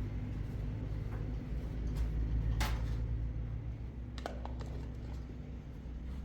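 An engine running steadily at a low pitch. A short hiss comes about two and a half seconds in, and a few sharp clicks follow about four seconds in.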